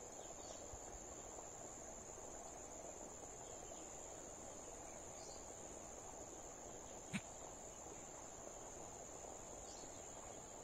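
Insects trilling in one unbroken, high-pitched drone, faint, with a single sharp click about seven seconds in.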